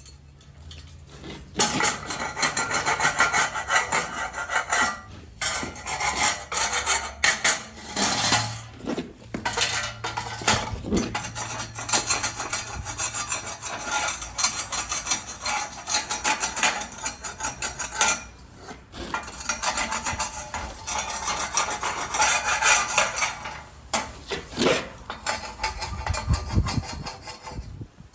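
Hand tools being cleaned and handled: repeated scraping and rasping strokes with clinks of metal knocking on metal, broken by short pauses.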